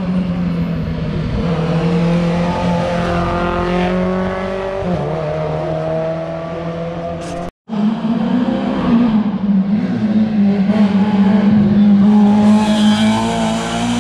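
Rally car engine running hard on a special stage, its pitch climbing and then dropping sharply about 5 s in as the car changes gear or lifts off. After an abrupt cut about 7.6 s in, a rally car engine is heard revving again, growing louder toward the end.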